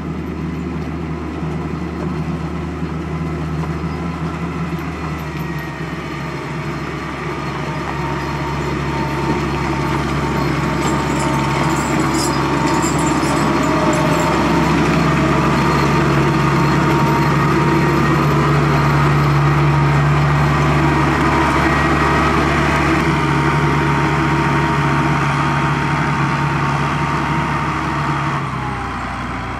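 Valtra 8050 forestry tractor's SISU 620DS six-cylinder 6.6-litre diesel running steadily as the tractor drives past with its forwarding trailer. It grows louder to a peak around the middle as it passes, then eases off, and the engine note drops near the end.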